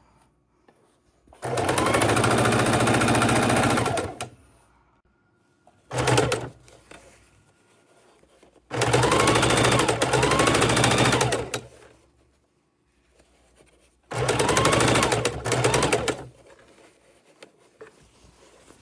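Sewing machine stitching double-sided bias tape onto a fabric bowl cover, running in four separate bursts with pauses between: three runs of two to three seconds and one short one about six seconds in.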